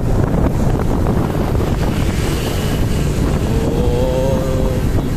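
Wind buffeting the microphone while riding a motorbike, a loud steady rumble with the bike running underneath. A short higher-pitched sound comes about four seconds in.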